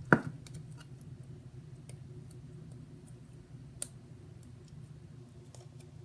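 Freshly activated clear slime being mixed and handled, giving scattered small clicks and pops, with a sharp knock just after the start and another click a little before four seconds in. A steady low hum runs underneath.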